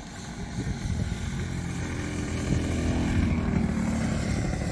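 Large-scale radio-controlled aerobatic model airplane's engine and propeller running as it passes low over the runway, growing louder to a peak about three seconds in and then easing off.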